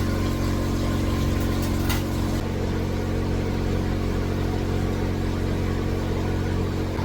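A steady machine hum, like a fan or motor running without a break, with one short click about two seconds in.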